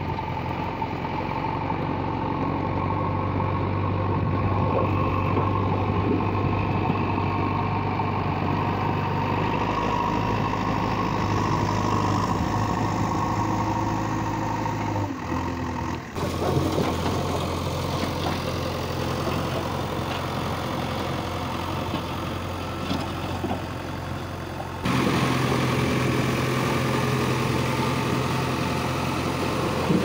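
JCB 3DX backhoe loader's diesel engine running steadily as the machine works, pushing its front bucket through dry grass and soil. The engine note changes abruptly about halfway through and again near the end.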